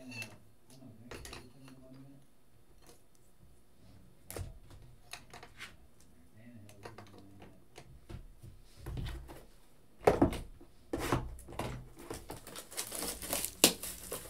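Rigid plastic trading-card holders clicking and tapping as they are handled and set into display stands on a table. From about ten seconds in there is a louder, denser run of clacks with crinkling and rustling.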